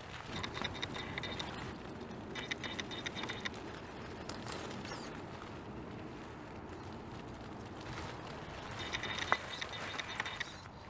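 Home-built 1/10-scale RC rock crawler with a Fusion Pro brushless motor whining in three short spurts as it crawls through ivy, with leaves and twigs crackling and rustling under the tyres.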